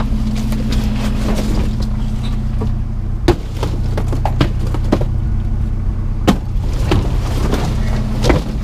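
A vehicle engine idling steadily, with scattered sharp knocks and clatters of objects being handled, two of them louder, about three and six seconds in.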